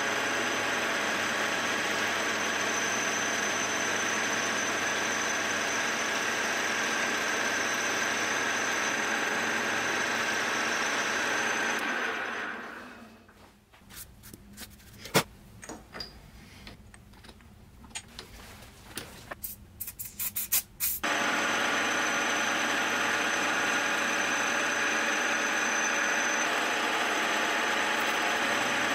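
Milling machine spindle running steadily while an end mill cuts a groove in a vise soft jaw. About twelve seconds in the machine sound drops away to a much quieter stretch of scattered sharp clicks and ticks, then comes back steady about eight seconds later.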